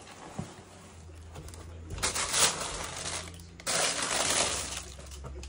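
Tissue paper rustling and crinkling in a shoebox as a gloved hand pushes it aside, in two bursts, one about two seconds in and a longer one from about three and a half seconds in.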